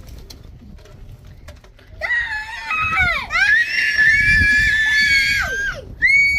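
A person screaming: a long, high-pitched scream held for about three seconds, starting about two seconds in, then a second short scream near the end.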